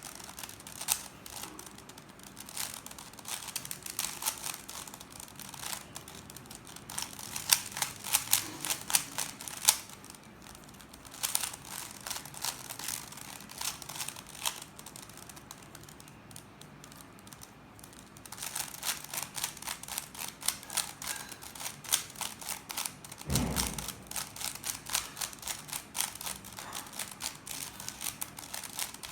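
Plastic 3x3 Rubik's cube being turned fast, a rapid clatter of clicks from its layers in bursts with short pauses between them. A single dull thump comes about two-thirds of the way through.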